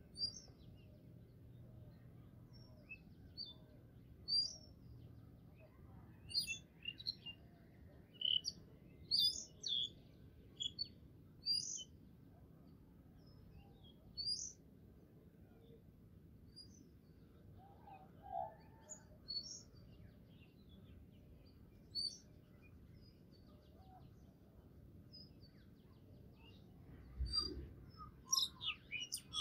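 Birds chirping in short, high calls on and off, over a faint low hum, with a low thump near the end.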